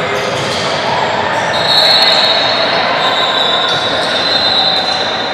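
Basketball players' sneakers squeaking on the gym floor during play, with a long, high squeal from about a second and a half in that dips slightly in pitch toward the end.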